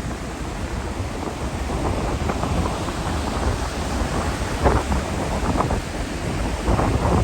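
Strong wind gusting across the microphone, a low buffeting rumble over the hiss of rain, with a few louder gusts swelling up.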